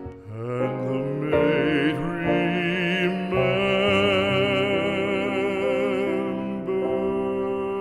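Background music: a classical art song, its singer holding long notes with vibrato over the accompaniment.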